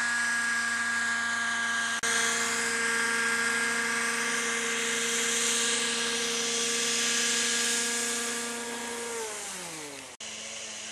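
Radio-controlled model helicopter's engine and rotor running with a steady high whine, then falling in pitch near the end as it settles on the grass and winds down. The sound breaks off suddenly about a second before the end, leaving a quieter steady hum.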